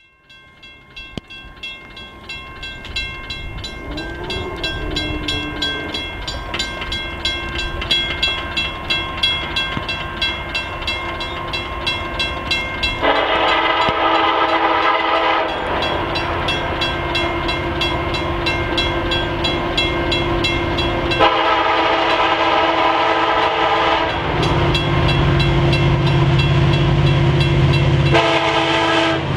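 Level-crossing warning bell ringing rapidly and steadily as the signals flash. An approaching CN diesel freight locomotive sounds its air horn in three long blasts for the crossing, about 13, 21 and 28 seconds in, and its engine rumble grows louder near the end.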